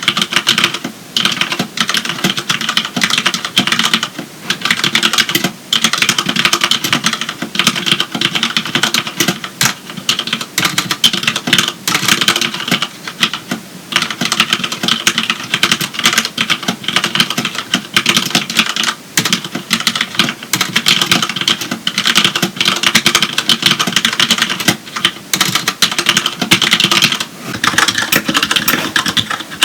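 Continuous fast typing on a Magicforce 68-key mechanical keyboard with Cherry MX Black linear switches: a dense run of keystroke clacks, with a brief pause near the end.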